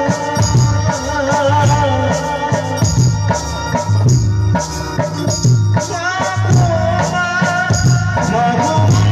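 Live Baul folk song played over a PA system: a man singing a wavering melody over a steady low beat about twice a second and shaken, jingling percussion. The voice drops out for a couple of seconds midway while the beat carries on.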